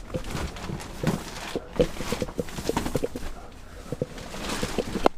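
Scattered light knocks, taps and rustling at an uneven pace: handling and movement noise inside the camper.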